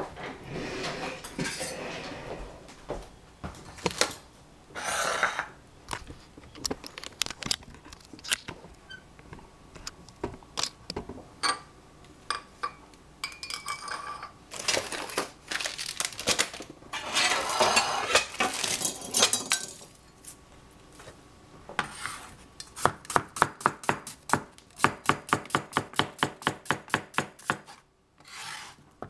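Scattered knocks, clatter and rustling as vegetables and utensils are handled. About 22 seconds in, a cleaver starts slicing a cucumber on a plastic cutting board, in quick, even chops at about three strokes a second.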